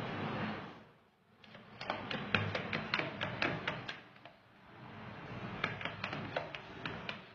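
Quick light clicks and taps against a stainless steel dog bowl as food is added from a handheld container: about a dozen over two seconds, then a shorter run a few seconds later. A steady hiss stops about a second in.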